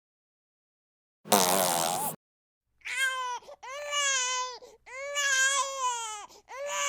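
Crying sound effect: a short harsh noisy burst, then four long wailing cries, each held and then dropping in pitch at the end.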